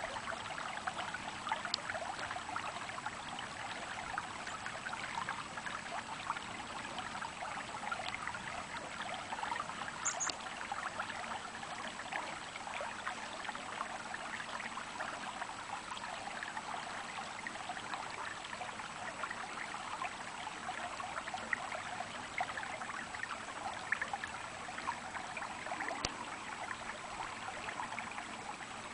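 Small stream of water babbling and trickling steadily, with a short high chirp about ten seconds in.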